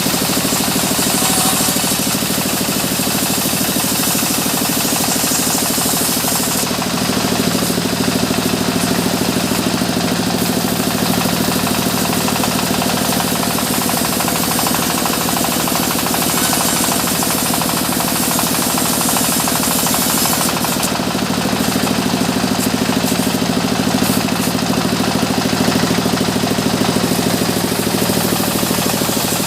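Sawmill machinery running steadily with a fast, even pulsing. The sound thickens and deepens about seven seconds in and again about twenty-one seconds in.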